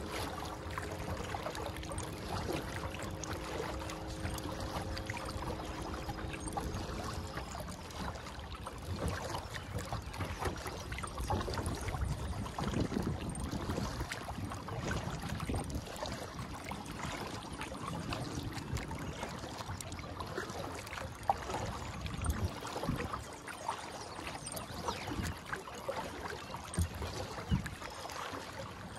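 Kayak paddle strokes on calm water: uneven splashing and dripping as the blades dip and lift, with water trickling along the hull. A faint steady hum with several pitches runs under it for about the first seven seconds, then stops.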